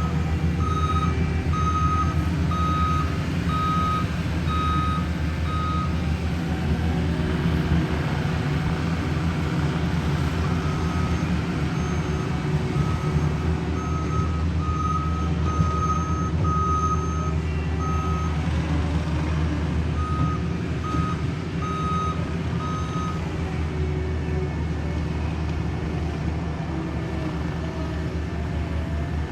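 Backup alarm on heavy paving equipment beeping at about one and a half beeps a second over a steady diesel engine rumble. The beeping comes in runs, stopping for a few seconds about six seconds in and again near the middle.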